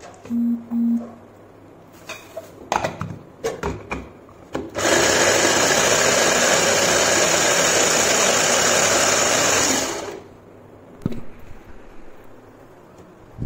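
Electric mini food chopper running steadily for about five seconds, pressed down to chop carrot and onion in its plastic bowl, then stopping suddenly. Before it starts there are a few knocks and clatters as the chopper is handled.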